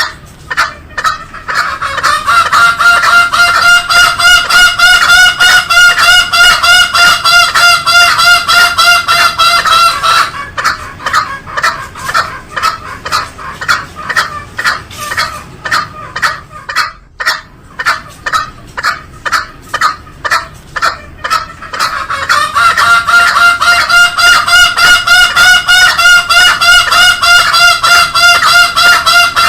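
Green junglefowl calling in a fast run of repeated notes, about five a second. Twice, a held, steady higher tone lies over the notes for several seconds. The run repeats like a looped recording.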